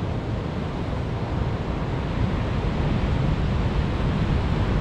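Ocean surf washing steadily on the beach, an even rushing noise heaviest in the low end.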